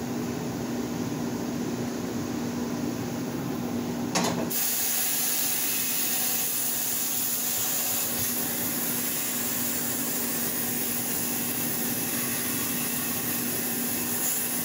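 Steady hum, then about four seconds in a sharp click and a constant hiss of compressed air at a pneumatic tire changer.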